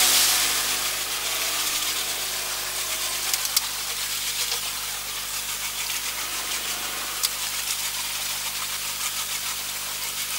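Rigid-inflatable lifeboat's outboard engine easing off from speed and settling to a steady idle, over an even hiss of water and wind. A few light knocks a few seconds in and again later.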